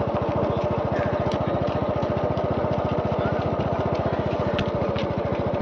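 A small engine running steadily, a fast even low throb with no change in speed.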